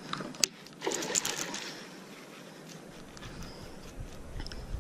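Baitcasting reel being cranked, a mechanical whirring, with a sharp click about half a second in and a louder scraping burst around a second in.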